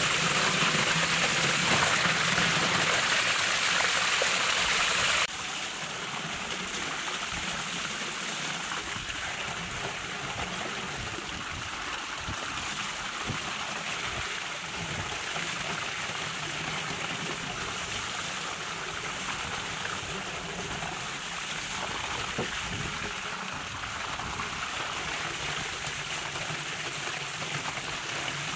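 A heavy stream of water pouring onto a large metal tray and a big fish being washed by hand, a steady splashing rush. It drops abruptly in loudness about five seconds in, then carries on steadily.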